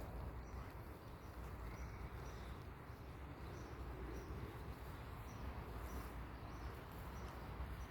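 Faint rural outdoor ambience: a low, steady rumble with a soft high chirp repeating about once a second.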